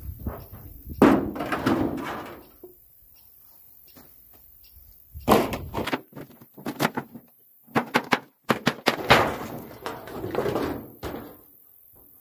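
Old wooden boards being lifted off and handled on a wooden well housing, knocking and clattering against the frame. A loud knock comes about a second in; after a quiet stretch, several groups of sharp wooden knocks follow in the second half.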